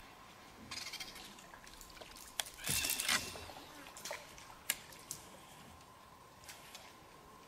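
A short splash of water about three seconds in, with a few sharp clicks and ticks around it, from a lure being cast and worked from a small boat.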